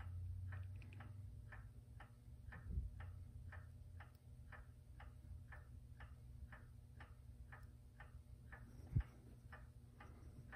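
A clock ticking steadily, about two ticks a second. A low thump stands out about nine seconds in, with a softer bump near the three-second mark.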